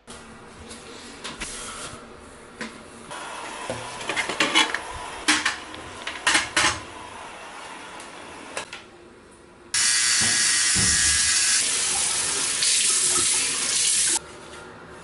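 Scattered knocks and clicks of handling things in a bathroom, then a bathroom sink tap running at full flow for about four and a half seconds, splashing as hands scoop water to the face, cutting off abruptly near the end.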